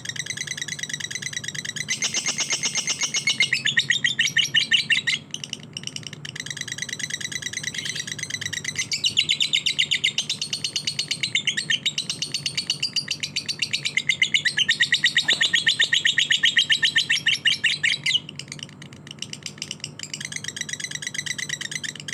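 Lovebird singing in long runs of rapid, evenly repeated high-pitched chirps, each run lasting several seconds, with short lulls about five seconds in and near the end, over a faint steady low hum.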